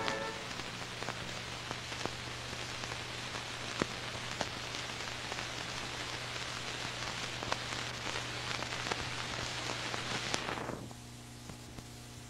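Steady hiss with scattered clicks and crackles over a low mains-type hum: the noise floor of an old analog soundtrack once the music has ended. About eleven seconds in the hiss drops away suddenly, leaving only a fainter hum.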